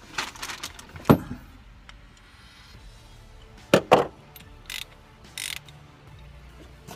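Sharp metallic knocks and clatters of tools working on the fuel pump's tight locking ring with a special tool. The loudest knock is about a second in, and two more come close together a little past halfway.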